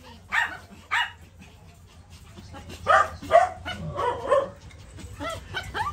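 Small dogs, a Pomeranian among them, barking in short, high yaps. There are two near the start, then a quick run of them from about three seconds in, and a couple more near the end.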